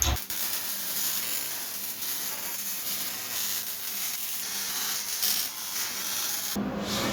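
Electric arc on steel sizzling with a steady hiss for about six and a half seconds, then cutting off abruptly.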